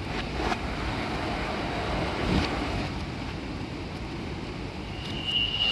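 Steady rumbling noise of a Bangkok MRT subway train at the platform as the platform screen doors open, with a steady high beep starting about five seconds in.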